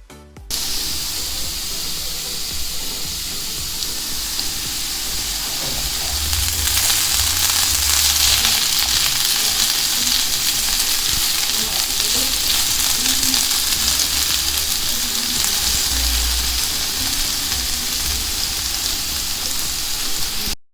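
Potatoes frying in a skillet: a steady sizzle that starts about half a second in, grows louder about six seconds in, and cuts off abruptly just before the end.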